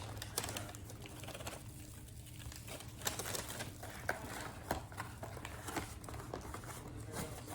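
Light rustling and crinkling of paper and plastic food packaging being handled, with scattered small clicks and taps.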